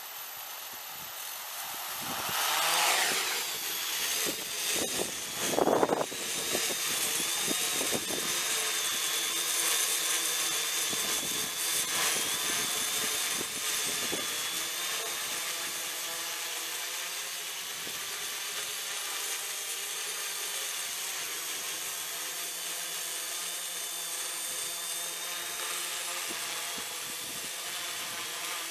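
Homemade quadcopter's four electric motors and propellers whirring with a steady high whine. They grow louder about two seconds in as it lifts off, swell sharply a few times in the first six seconds, then hold a steady buzz as it hovers.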